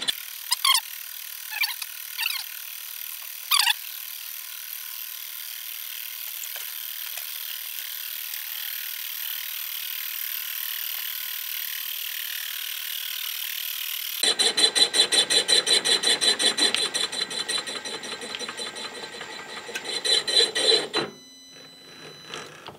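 Knee mill with a boring head boring a cement mixer yoke journal. The spindle runs with a steady hiss at first. About 14 s in, the boring tool starts cutting with a fast, even ticking, typical of an interrupted cut that takes metal on only one side of the bore. The cut and the spindle stop about 21 s in.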